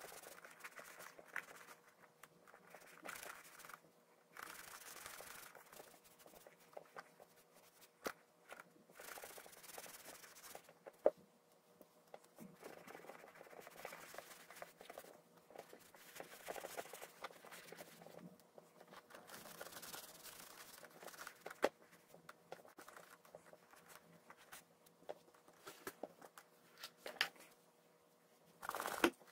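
Tack sponge rubbing cream over a black leather riding boot: soft scrubbing strokes that come in patches of a second or two, with a few sharp clicks between them.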